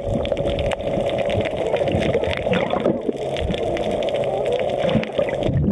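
Water heard through a submerged camera: a steady, muffled gurgling and bubbling with many small clicks scattered through it.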